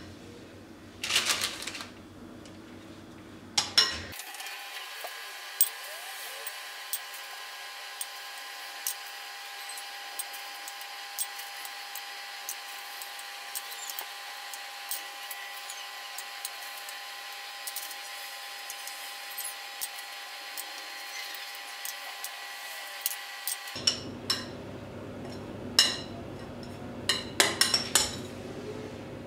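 A spoon clinks and scrapes against a glass bowl as garlic-herb butter is scooped onto baguette slices, with sharp clinks in the first few seconds and a cluster again near the end. In between there is only a steady hum with faint ticks.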